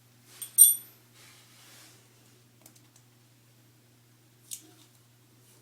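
A small metal object clinks once sharply with a brief ring, about half a second in, then faint handling rustles and a light click near the end, over a low steady hum.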